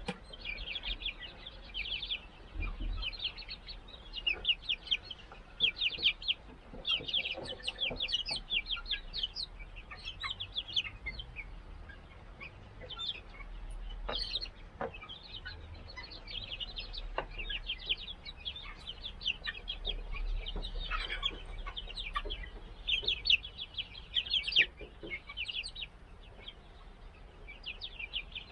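A flock of month-old mixed-breed chicks peeping: short, high-pitched calls come in quick runs, some thick clusters and some sparse, all through.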